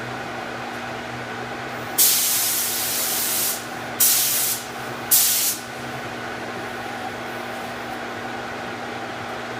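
Paint spray gun spraying epoxy primer in three trigger pulls: a hiss of about a second and a half about two seconds in, then two short ones. A steady low hum runs underneath.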